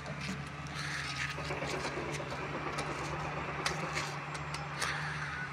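An engine running steadily at idle, a low even hum, with a few light metallic clicks as a track gauge is handled on the rails.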